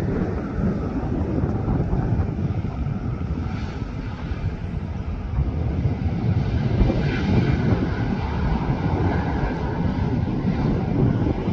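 Boeing 737 MAX 8's CFM LEAP-1B jet engines giving a steady, deep rumbling roar as the airliner rolls along the runway.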